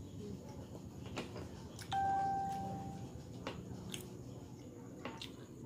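A single chime-like ding about two seconds in, one clear tone that fades over about a second. Around it, small clicks and mouth sounds of eating by hand.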